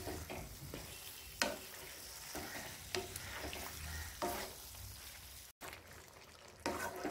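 Wooden spatula stirring penne pasta through a thick tomato masala in a metal kadhai, with occasional knocks and scrapes of the spatula against the pan over a faint sizzle.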